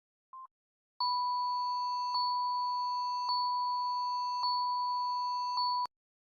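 Electronic battery-alert beep effect: a short faint blip, then a steady high beep held for about five seconds, restarting with a faint click about every second before cutting off suddenly.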